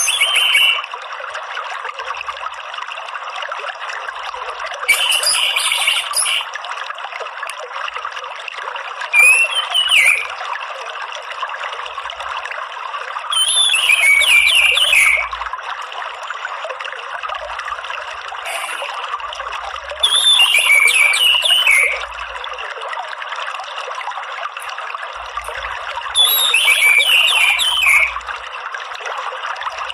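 Orange-headed thrush giving short, rapid warbling 'ngeriwik' song phrases every few seconds, each a second or two long, over a steady trickle of running water.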